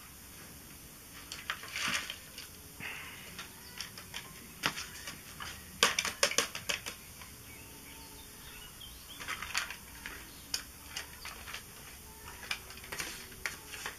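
Irregular sharp crackles and pops from the closed charcoal kettle grill as the chicken cooks, coming in scattered clusters over a faint steady background.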